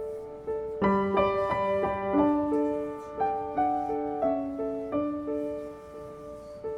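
Soft background piano music: a repeating note about every 0.6 seconds, with a fuller run of chords from about a second in to about five seconds in.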